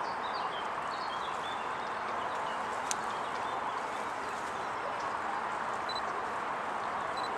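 Steady outdoor background noise, with a few short bird chirps in the first second or two and again near the end, and one sharp click about three seconds in.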